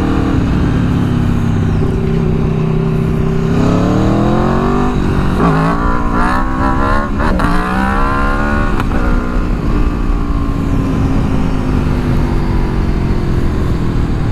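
Aprilia Tuono V4 1100's V4 engine heard from the rider's seat: running steadily, then accelerating hard with the revs climbing through several quick upshifts from about four to nine seconds in, then easing off with the revs falling slowly.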